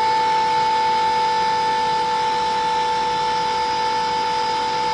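Jet engine running steadily: a constant high whine over a rushing noise.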